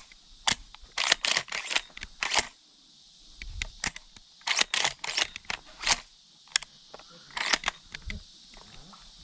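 Irregular sharp clicks and crackles, some in quick runs with short pauses between, over a steady high hiss: handling or rustling noise.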